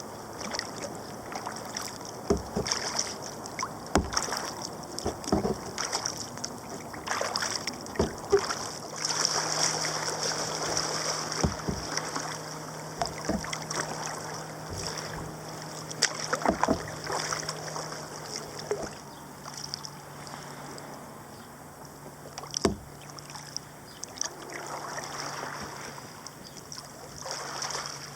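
Kayak being paddled: paddle blades dipping and splashing, water running along the hull, with irregular sharp knocks of the paddle against the kayak. A low steady hum joins about a third of the way through.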